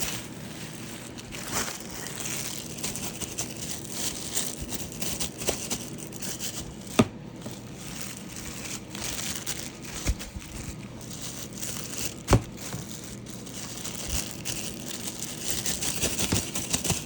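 Packaging rustling and crinkling as parts of a stick vacuum are worked out of a tightly packed box, with two sharp knocks, one a little before halfway and one about two-thirds through.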